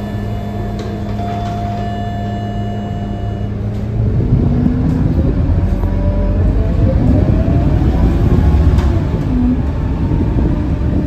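Scania K230UB bus idling with a steady door-closing warning tone. About four seconds in, the tone stops and the engine gets louder as the bus pulls away, with a rising whine as it gathers speed.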